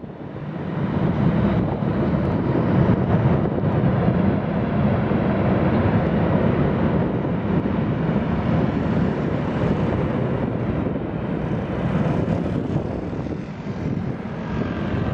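Airbus A321's twin jet engines running at high power on reverse thrust during the landing rollout. A loud, steady rumble builds over the first second and eases slightly near the end as the airliner moves away.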